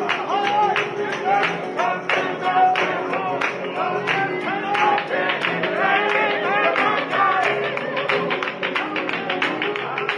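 Flamenco-style guitar music with quick, closely spaced strums and a melody weaving over them.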